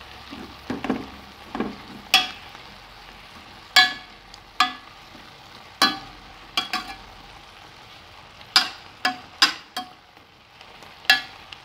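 Blue spatula stirring diced tomato, onion and huitlacoche in a white enamel pot, knocking against the pot about a dozen times at uneven intervals, each knock ringing briefly.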